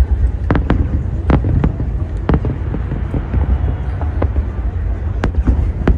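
Fireworks exploding overhead: irregular sharp bangs, about eight in six seconds, over a steady low rumble.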